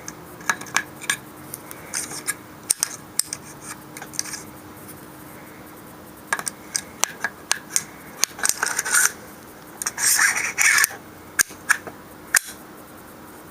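Metal parts of a CMMG .22LR conversion unit scraping, sliding and clicking as it is fitted into an AR-15 in place of the bolt carrier group: short scraping rasps broken by a series of sharp clicks, with two distinct clicks near the end.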